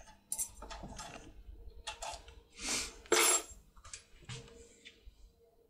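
Metal clicks and scraping of a Mauer lock pick being worked in the keyway of a euro cylinder lock and drawn out, with a louder ringing metallic clink just past halfway.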